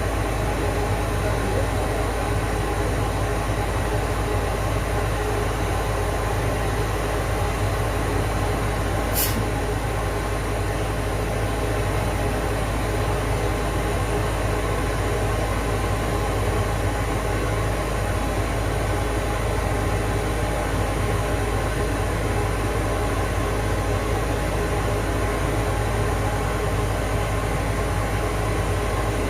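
A steady, unchanging machine-like hum and noise, with a brief high whistle about nine seconds in.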